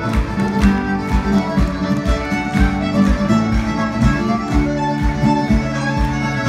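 Live Irish traditional dance music: a fiddle playing a tune over guitar backing, with a steady beat of about two strokes a second.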